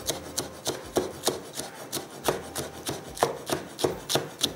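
Cleaver chopping a green chilli finely on a wooden cutting board: a steady run of quick knocks, about three a second, as the blade strikes the board.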